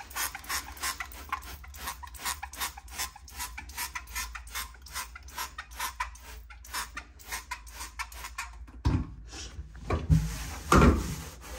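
Rapid back-and-forth scrubbing of a kitchen surface wet with a Pinol, water and bleach mixture, about four strokes a second. Near the end the strokes stop and a few heavier knocks and rubs follow.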